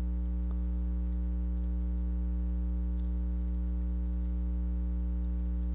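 Steady electrical mains hum: a low, unchanging drone with a stack of overtones, picked up by the microphone.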